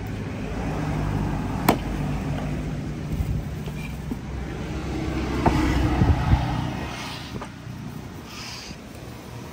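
A motor vehicle's engine passing on the road, swelling to its loudest past the middle and fading near the end. A few sharp knocks of a knife on the wooden chopping block stand out, the loudest about two seconds in.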